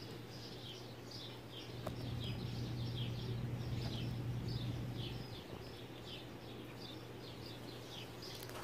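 A small bird calling with short, falling chirps repeated about twice a second, over a faint steady low hum that swells for a few seconds in the middle.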